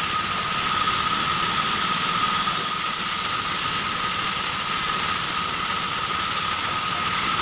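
Large vertical band saw running steadily with a constant high whine as reclaimed wooden boards are fed through the blade.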